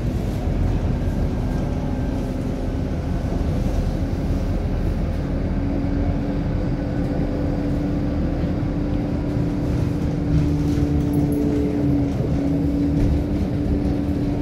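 Scania K230UB city bus heard from inside the passenger cabin: a steady engine and road rumble with a whine that steps up about five seconds in and climbs slightly as the bus gathers speed.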